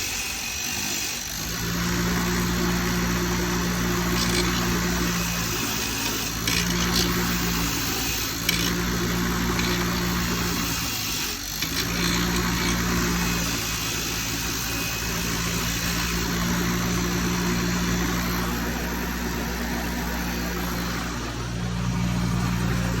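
A motor-driven wire wheel running while an old bolt is brushed clean against it: a steady motor hum with a pitched tone that drops in and out every few seconds, over a constant scratchy hiss of the wire bristles.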